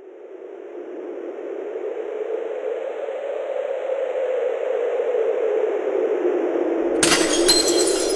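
Title-sequence sound effect: a steady whoosh of noise that swells from silence over the first few seconds, then about seven seconds in a sudden shattering crash with tinkling shards.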